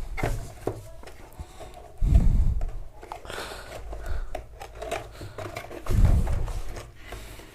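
A cardboard keyboard box being opened and handled by hand, with small scrapes, clicks and rustles of the flaps and contents. Two dull thumps come about two and six seconds in.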